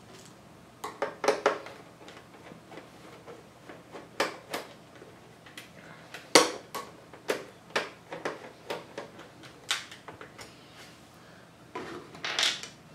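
Irregular clicks and knocks of a screwdriver working the screws of the metal stand bracket on the plastic back of a Lenovo ThinkCentre Edge 92Z all-in-one PC. A louder clack comes about six seconds in and another near the end.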